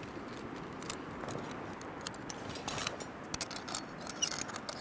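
Faint steady background noise with scattered light clicks and clinks from climbing gear, carabiners and quickdraws knocking on a climber's harness.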